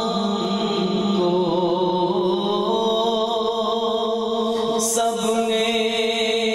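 A man's solo voice chanting a slow Urdu devotional verse into a handheld microphone, holding long, gently wavering notes.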